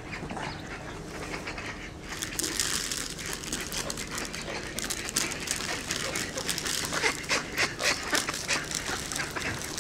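A rapid run of light clicks and crinkling rustles, sharper and louder about seven to eight seconds in, as popcorn is handled and pieces land and scatter on the dock's deck.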